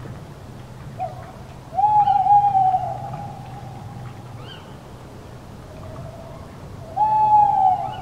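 Tawny owl hooting: a short hoot about a second in, then a long drawn-out hoot, and another long hoot near the end.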